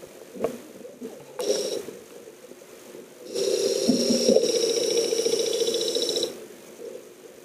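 Electric drive motors of a small wireless underwater ROV running, heard underwater: a short burst about a second and a half in, then a steady, fine-grained buzzing whine for about three seconds that cuts off suddenly.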